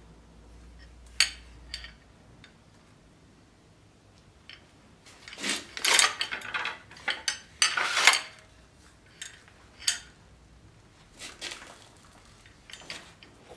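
Steel sword fittings and scabbard hardware clinking and rattling as the sword in its scabbard is handled. A few separate clicks come first, then a dense run of loud metallic rattles in the middle, then lighter taps as it is set down on the fur.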